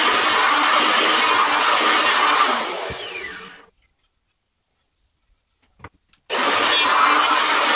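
Bosch electric hand planer running as it planes wood, then switched off: its pitch falls as the cutter spins down and it goes quiet about three and a half seconds in. After a couple of small knocks, the planer starts up again abruptly about six seconds in and runs loud.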